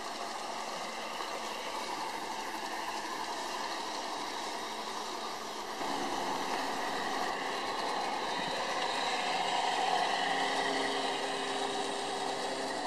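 Large-scale garden-railway model trains running on outdoor track: a steady whir of small electric motors and wheels on the rails. The sound changes about six seconds in, where a different train takes over.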